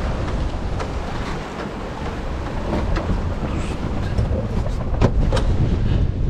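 Strong wind buffeting the microphone aboard a sailing yacht under way, with water rushing and splashing along the hull, broken by a few sharp knocks.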